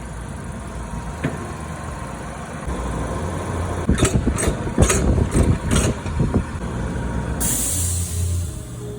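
Honda GXV engine on a Snapper mower running, with a quick series of sharp knocks or clanks about four to six seconds in and a burst of hiss near the end.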